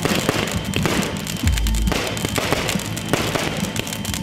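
Aerial fireworks bursting overhead, with a deep boom about one and a half seconds in among many quick pops and crackles, over music playing.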